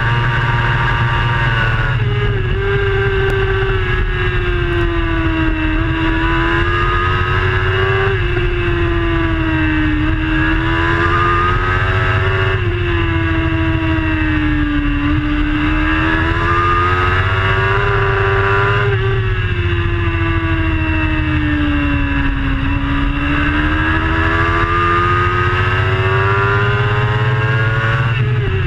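Racing superbike engine at full speed, heard from an onboard camera: a loud, steady engine note whose pitch swells and sinks over a few seconds at a time and jumps abruptly every few seconds as the rider works through the gears, with a low rumble underneath.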